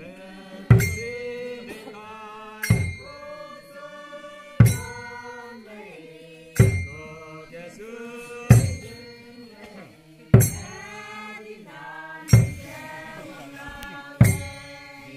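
Group of Naga dancers chanting in unison, several voices singing a short phrase after each loud drum beat. The beat falls steadily about once every two seconds.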